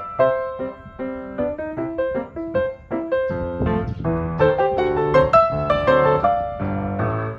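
Background piano music: a melody of struck notes over bass notes.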